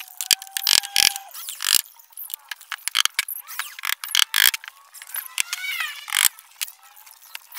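Irregular sharp knocks and clicks of carpentry work on a plywood cabinet, including hammer strikes on the wood.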